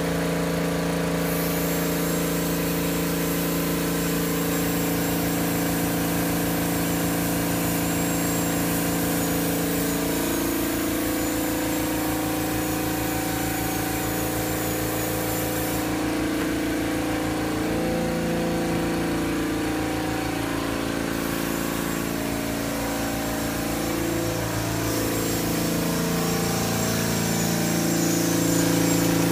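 California air compressor running with a steady hum whose pitch shifts a few times, powering a dental handpiece. A thin high whine from the handpiece at work on a practice tooth runs through the first half and comes back near the end.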